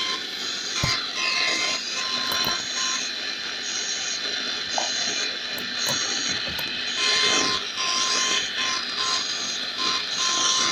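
Leningrad 006 receiver's loudspeaker on the medium-wave band giving out hiss and interference, with whistling tones that keep cutting in and out, and no station coming through in the daytime.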